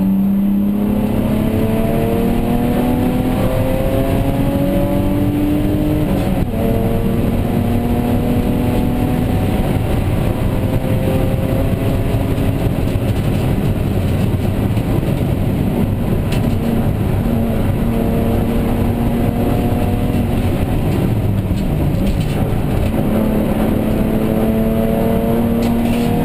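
BMW E36 325i race car's straight-six engine heard from inside the cockpit at racing pace. It runs up in pitch through the gears, dropping back at each upshift, over a steady rumble of road and tyre noise.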